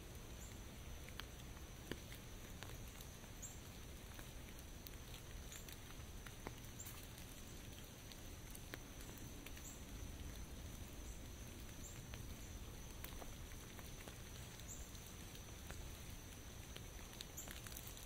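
Light rain pattering, with scattered single drops ticking on an umbrella, under a faint steady high-pitched tone.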